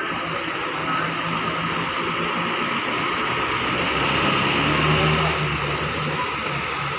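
Coach bus's diesel engine running as the bus pulls away and turns, growing a little louder about four to five seconds in.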